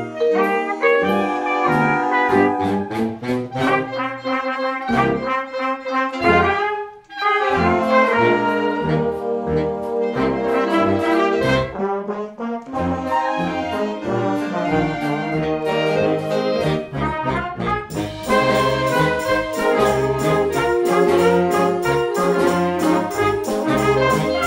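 Youth wind band playing: brass, saxophones, clarinets and flute over drum kit, mallet percussion and electric bass. The music breaks off for a moment about seven seconds in, and the band grows fuller and brighter from about three-quarters of the way through.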